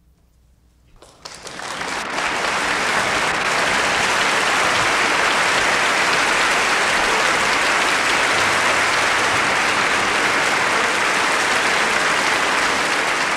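Concert audience applauding at the end of an orchestral performance. It starts about a second in out of near silence, swells within a second, and then stays steady and full.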